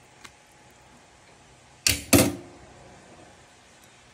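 Two sharp knocks in quick succession about two seconds in, the second slightly longer with a brief ring after it.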